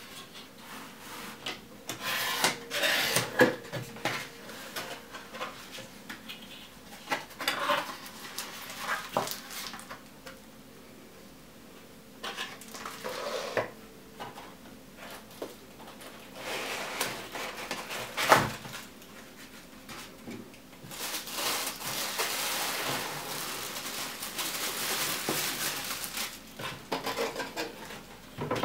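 Cardboard lens box being opened by hand: flaps scraping, rubbing and tapping, with one sharp knock about two-thirds of the way through. For the last several seconds there is a steady crinkling from the clear plastic bag wrapped around the lens as it is handled.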